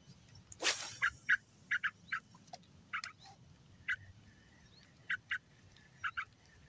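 A bird in the reeds giving short, sharp calls over and over, often two in quick succession. About half a second in, a brief louder rustle.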